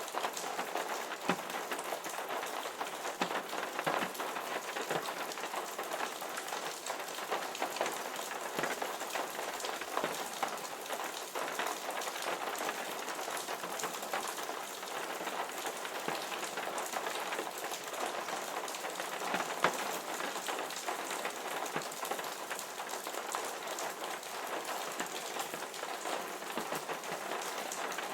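Steady rain falling, with many individual drops ticking sharply close by; one louder drop hit about twenty seconds in.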